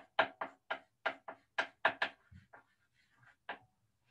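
A quick, irregular run of about a dozen sharp taps, a writing implement striking a writing surface while a graph is drawn. The taps thin out and stop about three and a half seconds in.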